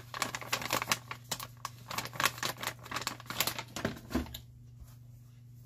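A person chewing a small cookie close to the microphone: a run of irregular crunchy clicks for about four seconds that then stops.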